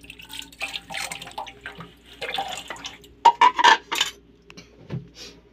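Water splashing and sloshing as freshly cleaned small fish are rinsed and moved by hand in a plastic colander, in irregular bursts with a cluster of louder splashes and knocks a little past the middle.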